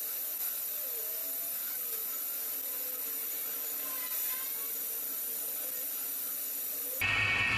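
Steady, high-pitched whir of a workshop power tool running.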